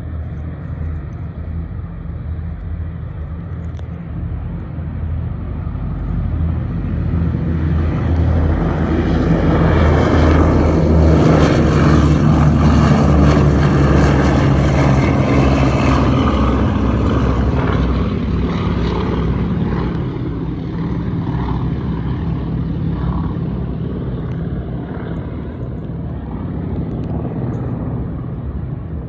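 Boeing B-17G Flying Fortress's four Wright R-1820 Cyclone radial engines at takeoff power, swelling as the bomber lifts off and passes, loudest about halfway through, then fading slowly as it climbs away.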